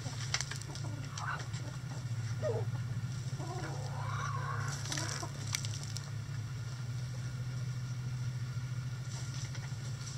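Backyard chickens clucking and calling, with short calls in the first few seconds and a longer, wavering call around the middle. A steady low hum runs underneath.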